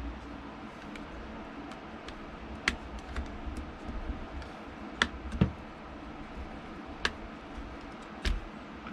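Small, sharp clicks and taps of a screwdriver and tiny screws on a Nintendo Switch Lite's metal heatsink and plastic parts as its Phillips screws are removed, a few irregular ticks over a low steady hum.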